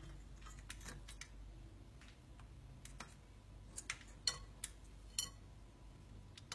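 Scattered sharp clicks and taps, about ten at irregular intervals, from an African grey parrot picking with its beak at a lidded metal pot on a stove.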